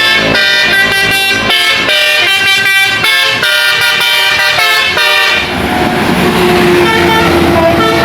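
Tour bus 'telolet' horn playing a rapid multi-tone melody, its notes changing several times a second. About five seconds in the melody stops, leaving the bus engine running as it passes, with a steady lower tone held near the end.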